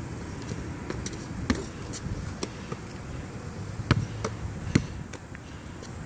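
A basketball bouncing on an outdoor asphalt court: a few separate sharp bounces, the loudest about four seconds in and again just before five seconds.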